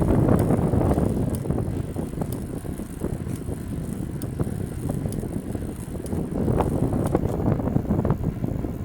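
Bicycle being ridden: a steady rumble of tyres and wind on the microphone, with light clicks about once a second from the bike's drivetrain.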